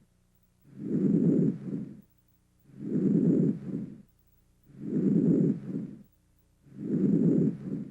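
Normal vesicular breath sounds, soft and low-pitched, with four breaths about two seconds apart. Each is a longer inspiration that runs into a short, fainter stretch of early expiration, the normal pattern over most of the lung fields.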